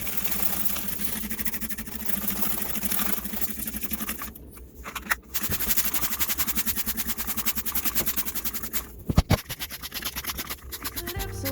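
A small motor running with a fast, even rattle, cutting out briefly twice.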